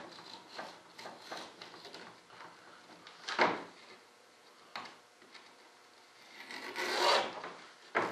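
A hand tool scraping along the edge of a vacuum-bagged foam model-aircraft part as it is trimmed by hand: irregular rasping strokes, the loudest a short one about three and a half seconds in and a longer stroke around seven seconds in.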